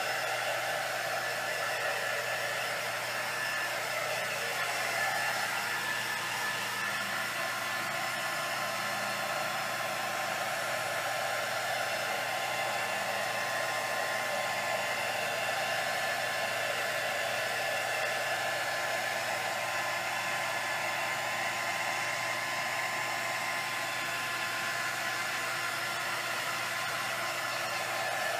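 Handheld craft heat gun blowing steadily on wet epoxy resin, heating it to bring bubbles to the surface and pop them.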